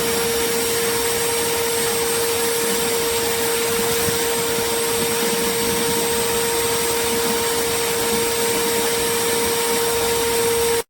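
Compact Shop-Vac wet/dry shop vacuum running steadily, a loud motor whine with a strong steady hum-like tone over an even rush of air.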